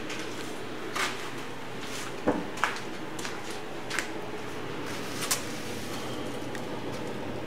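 About five short, sharp clicks and knocks, spaced a second or so apart, over a steady low hum.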